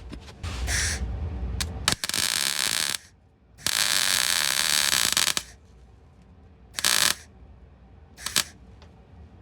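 A power tool run in short bursts, cleaning up the metal of a car's sill: two longer runs of about a second and a second and a half, with a few brief blips between them.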